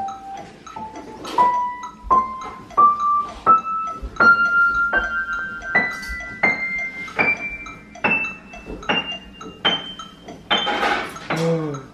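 Upright piano played one key at a time by a toddler: single notes about two-thirds of a second apart, each a step higher than the last, climbing steadily toward the treble. Near the end comes a denser jumble of sound.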